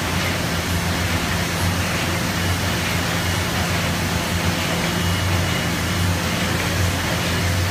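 Thermal film laminating machine running steadily: a constant low hum under a wash of mechanical noise.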